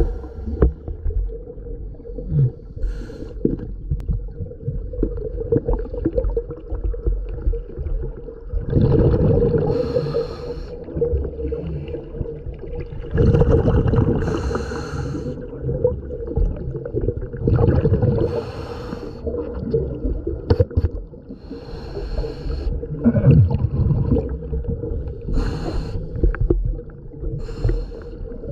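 Scuba diver breathing through a regulator underwater: bursts of exhaled bubbles gurgling and hissing about every four seconds, over a steady low hum.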